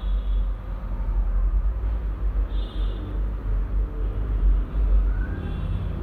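A loud, continuous low rumble with no speech over it.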